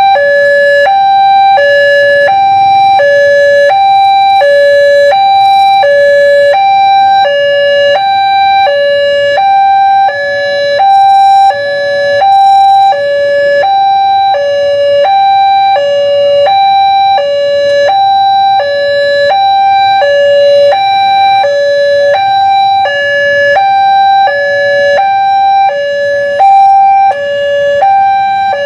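A railway level crossing's electronic warning alarm sounding a loud two-tone signal, high then low, repeating about once a second, to warn that a train is coming and the crossing is closed.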